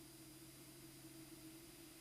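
Near silence: a faint steady hum under a low hiss.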